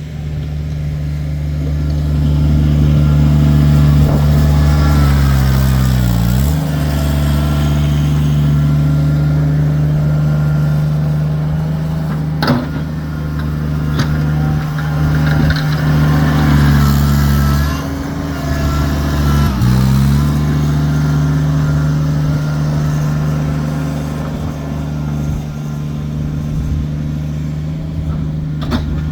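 Kubota tractor's diesel engine running steadily while plowing snow, its pitch dipping briefly and recovering twice. A couple of short knocks are also heard.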